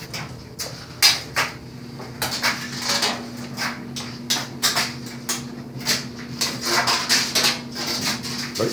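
Irregular sharp clicks and light clatters, several a second, over a steady low hum.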